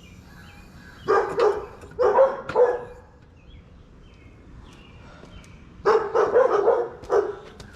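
A dog barking in three bouts of short barks: one about a second in, another around two seconds, and a longer run near six seconds.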